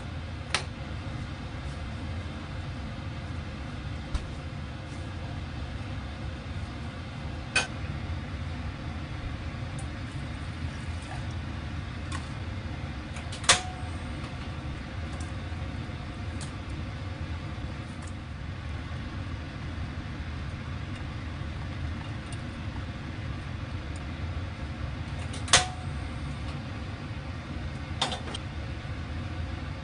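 Steady low kitchen rumble with a few sharp clanks of cookware on the gas stove. The two loudest come about halfway through and near the end, each with a brief metallic ring.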